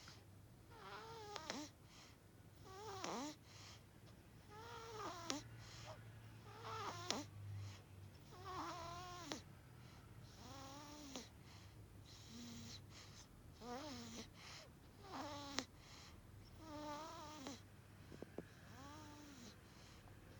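One-month-old baby snoring in deep sleep: a faint, pitched, wavering snore on each breath, about every second and a half.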